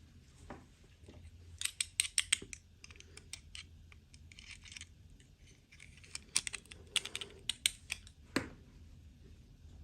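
Small plastic toy parts and packaging being handled during an unboxing: quick, light clicks and taps in two flurries, about two seconds in and again from about six seconds, with one louder click near the end.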